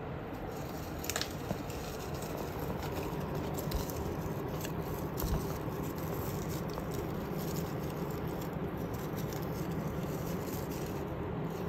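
Tortoiseshell cat biting and gnawing a plush toy on a wand, heard as scattered soft clicks and rustles over steady background noise.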